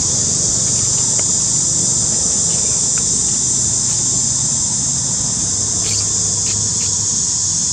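Steady, high-pitched drone of a chorus of insects, unbroken throughout, over a faint low rumble.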